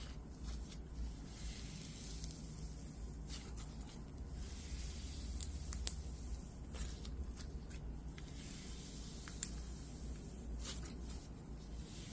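Pumice slime being squished and worked by hand, a gritty, wet crackling with scattered small pops, two of them sharper about six and nine seconds in.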